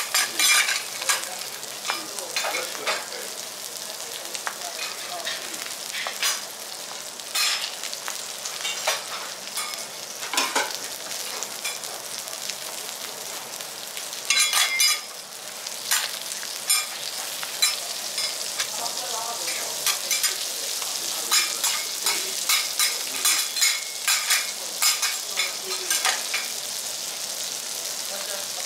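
Japanese rockfish fillet sizzling in oil on a teppanyaki griddle, a steady hiss with frequent sharp crackling pops of spitting oil. The sizzle swells louder briefly about halfway.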